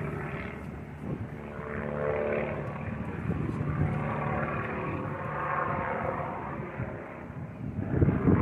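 Propeller-driven aerobatic airplane's piston engine droning overhead as the plane climbs vertically. A louder rush of noise comes near the end.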